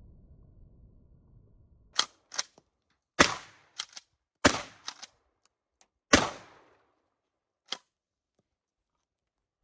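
Stevens 320 pump-action 12-gauge shotgun fired four times in quick succession, about a second and a half apart, loaded with number 6 birdshot. Smaller sharp clacks fall between the shots and once more near the end, the pump being worked.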